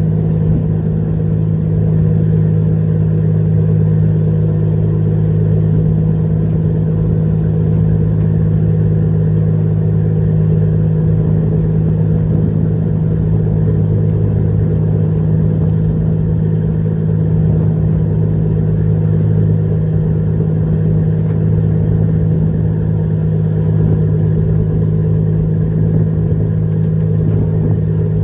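Fishing trawler's engine running with a steady, unchanging low drone.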